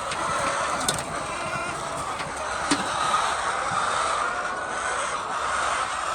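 Steady din of a large flock of chickens calling in a poultry shed, with a couple of sharp clicks about one and three seconds in.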